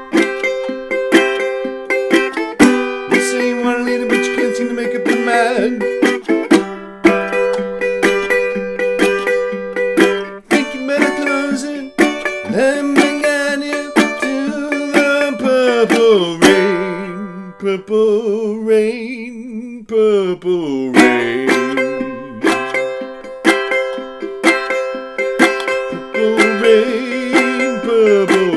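JN Guitars Cask Puncheon resonator tenor guitar, capoed at the fifth fret, played in a bluegrass style: quick picked notes and strums in an instrumental break.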